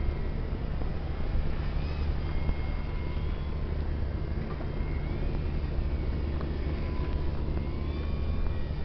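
Wind buffeting the microphone, with the faint whine of a radio-controlled aerobatic model plane's motor and propeller rising and falling in pitch as the throttle changes during hovering.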